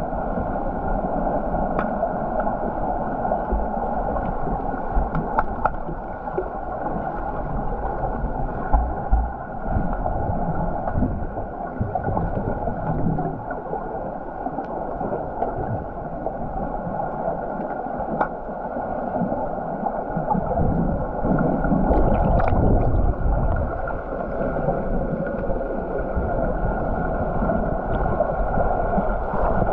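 Muffled underwater pool sound from a submerged camera: a steady low rush of water and swimmers moving, with scattered small clicks.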